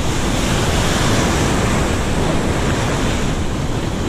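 Ocean surf breaking and washing in over shoreline rocks, a loud, steady rush of water, with wind rumbling on the microphone.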